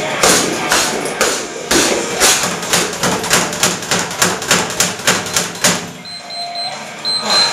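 Rapid gloved punches on a speed bag, a fast, even run of sharp smacks about five a second, stopping about six seconds in. Then a Gymboss interval timer beeps repeatedly in short high beeps, marking the end of the round.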